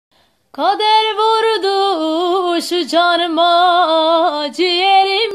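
A woman singing solo and unaccompanied, starting about half a second in: a slow line of held notes, each decorated with quick wavering ornaments, stepping down in pitch between phrases.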